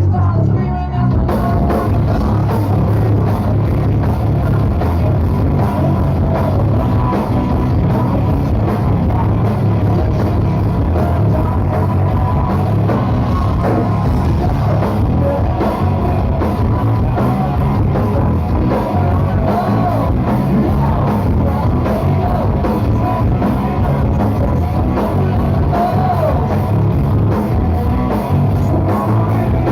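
Rock band playing live, with drum kit and sung vocals, steady and loud throughout.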